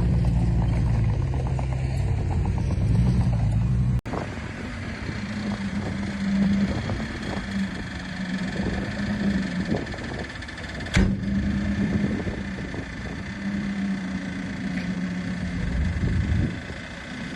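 Heavy diesel earthmoving machinery running steadily, deep and low at first; about four seconds in the sound breaks off abruptly and returns as a steadier, higher engine note, with a single sharp click near the middle.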